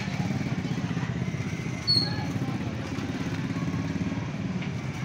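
A small engine running steadily with a fast, even pulse, and a short high metallic clink about two seconds in.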